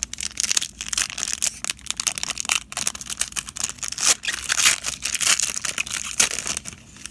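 Plastic wrapper of a football trading-card pack being torn open and crumpled, a dense run of crackles and crinkles.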